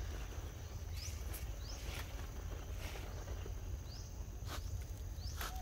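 Outdoor forest ambience: a steady high insect drone with a few short rising chirps and several sharp clicks, over a low rumble.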